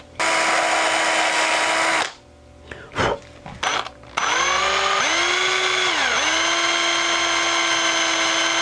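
Cordless drill running in two bursts as it bores into a small wooden crankbait body. The first run lasts about two seconds. After a pause with a click, a longer run starts about four seconds in; its whine sags briefly under load around six seconds in, then steadies.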